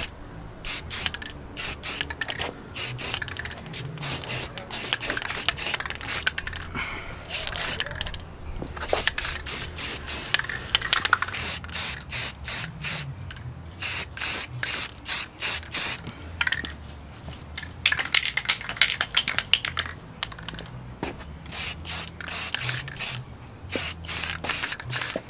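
Aerosol spray can of primer hissing in many short, quick spurts with brief pauses between runs.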